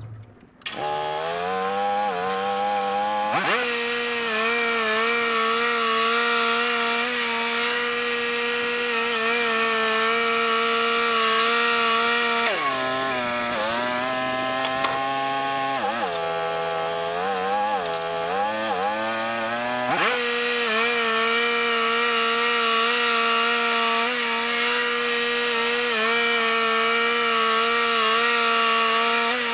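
Wood-Mizer LT35 portable bandsaw mill running, its band blade cutting through a yellow pine log. The engine comes in loud less than a second in, and its pitch sags and recovers several times in the middle as the cut loads it.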